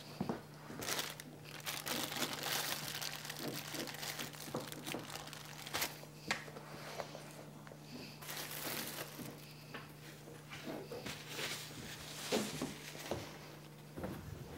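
A St. Bernard mix dog gnawing a marrow bone: irregular crunching and scraping of teeth on bone, a stream of small clicks.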